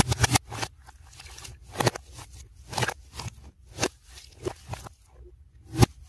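Black slime being pressed, stretched and poked by hands, giving sharp clicks and pops: a quick run of clicks at the start, then single pops about once a second, the loudest just before the end. The recording is played backwards.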